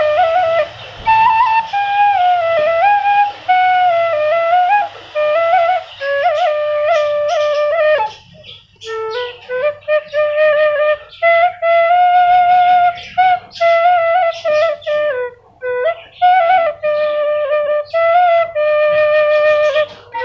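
Bamboo bansuri flute playing a slow solo melody one note at a time, with sliding notes and a few short gaps between phrases.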